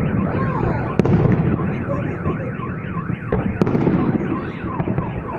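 Fireworks salute: a couple of sharp bangs over a crowd's murmur. A car alarm wails through it in a quick, repeating up-and-down sweep.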